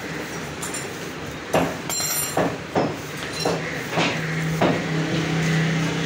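A knife tapping and knocking against a wooden chopping block, about six short sharp knocks, while membrane is trimmed off a goat leg. A low steady hum comes in about four seconds in.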